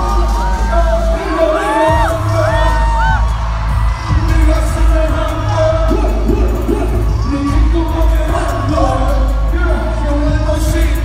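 Live hip-hop performance over a concert PA: a loud beat with heavy bass, and performers rapping and singing into microphones.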